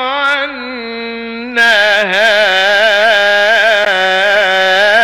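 A male Quran reciter chanting in the melodic mujawwad style, drawing out one long, ornamented held line. The voice is softer for the first second and a half, then louder with a wavering, trilled pitch through the rest.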